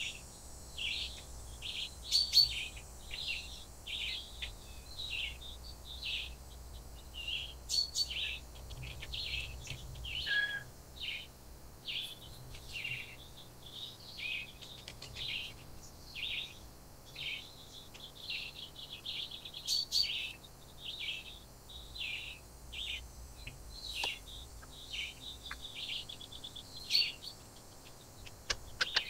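Wild birds chirping busily, many short high calls following one another with barely a pause, with a few sharper clicks among them.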